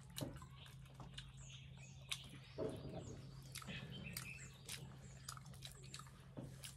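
Close-up eating sounds: scattered wet clicks and smacks of people chewing momo dumplings, over a low steady hum, with a few faint bird chirps.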